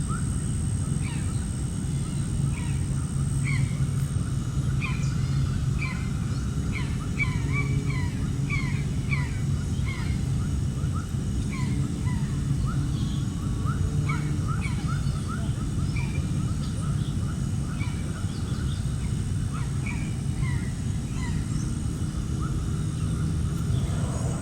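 A flock of birds calling, many short rising calls overlapping one another, over a steady low rumble.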